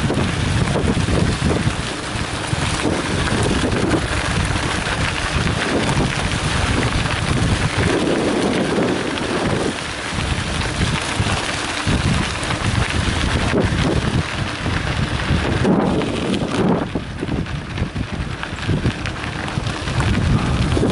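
Wind buffeting the microphone of a camera on a moving mountain bike, over a steady crunch of knobby tyres rolling on a loose gravel road.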